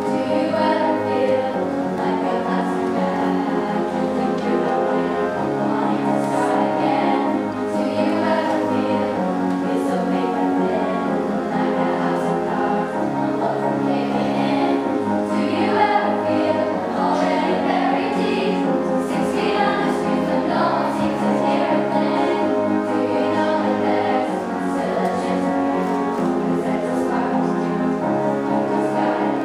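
Middle-school treble choir of young upper voices singing together over a musical accompaniment with steady bass notes.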